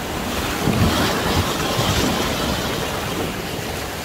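River water rushing and splashing, with wind buffeting the microphone; loudest about a second in.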